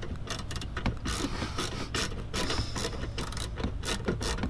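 Irregular clicking and ratcheting of hand work with tools and small parts, several sharp clicks a second over a steady low hum.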